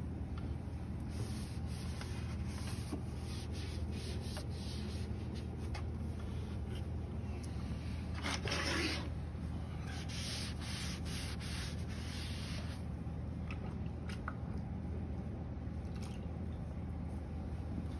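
Damp sponge wiping clay slurry off the surfaces around a pottery wheel: a run of irregular rubbing strokes, the loudest about eight seconds in, over a steady low hum.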